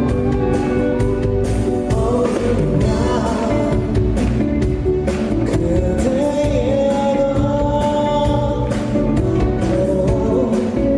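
Live pop-rock band playing, with a male lead vocal singing held, sliding notes over drums and guitar.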